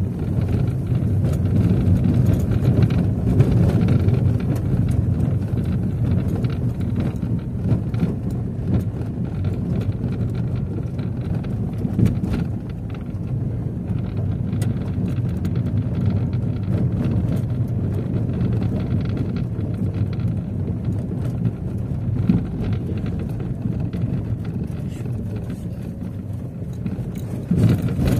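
Car driving on an unpaved dirt road, heard from inside the cabin: a steady low rumble of engine and tyres, with scattered small knocks and rattles from the rough surface.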